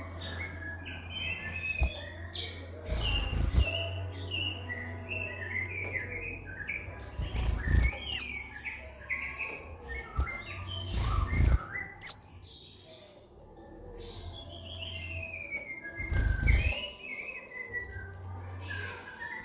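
Kolibri ninja, a sunbird, singing in a fast run of high twittering chirps. Sharp piercing notes come about eight and twelve seconds in. Underneath are a steady low hum and a few dull thumps.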